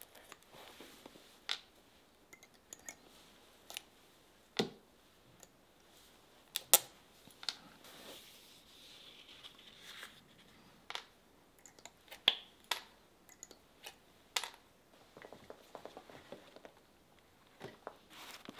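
Irregular sharp clicks and taps from shoemaking hand tools, lasting pliers and a small hammer working tacks into a leather upper on a shoe last, with soft handling rustle in between.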